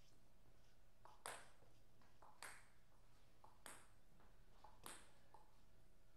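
Table tennis ball being bounced by a player between points: four faint, sharp pinging clicks about a second and a quarter apart, each with a softer tap just before it, over a quiet steady hum.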